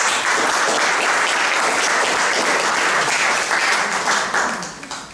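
Audience applauding, a dense run of clapping that dies away about four and a half seconds in.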